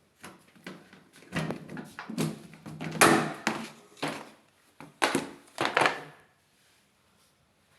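A run of irregular thuds and clunks, loudest about three seconds in and again around five to six seconds in.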